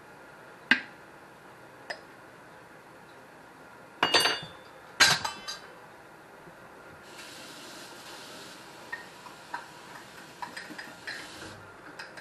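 Glass and metal kitchenware clinking: a couple of sharp knocks, then two loud clusters of ringing clinks about four and five seconds in. A steady hiss follows for a few seconds, with quick light taps of a spoon stirring in a glass cup, mixing thickener for gravy.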